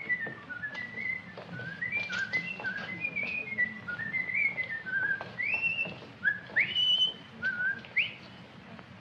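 A man whistling a tune in quick short notes, ending in three rising swoops, over the hum and hiss of an old film soundtrack.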